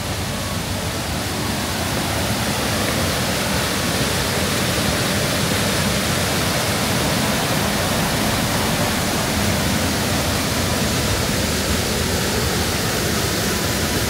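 Steady rushing roar of the Giessbach Falls, fading in at the start and out near the end.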